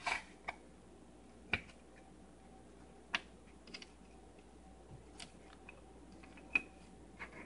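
Scattered sharp clicks and taps of small hand work: coins, wooden shims and a neodymium magnet being nudged into place on a wooden rotor under a spring clamp. There are about eight at uneven intervals, the loudest at the start and about six and a half seconds in.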